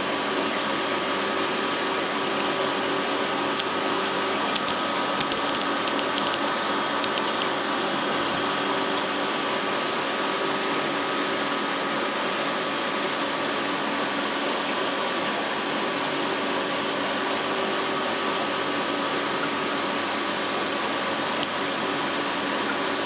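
Steady whirring hum and hiss of marine aquarium pumps and filtration, with a few light clicks about five to seven seconds in and one more near the end.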